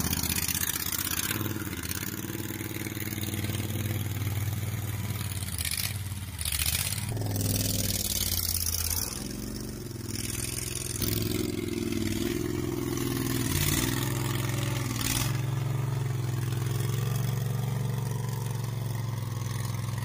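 Homemade skid steer loader's Loncin engine running loud with its muffler torn off, its note stepping up and down as the hydraulics work the bucket. A few short scrapes and clanks come through, the loudest in the middle of the stretch.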